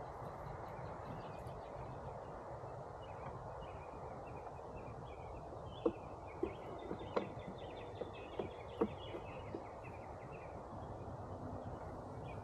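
Carniolan honey bees buzzing steadily around a hive, with birds chirping over them and a handful of sharp knocks in the middle.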